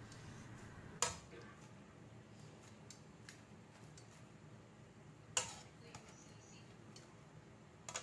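Metal tongs clacking against an aluminium wok while tossing leafy greens: two sharp clacks, one about a second in and one about five and a half seconds in, with lighter ticks in between, over a low steady background hum.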